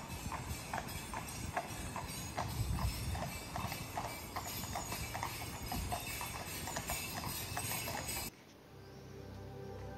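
Horse's hooves clip-clopping on an asphalt road as the horse pulls a carriage, a steady rhythm of several hoof strikes a second. About eight seconds in the hoofbeats cut off and calm background music begins.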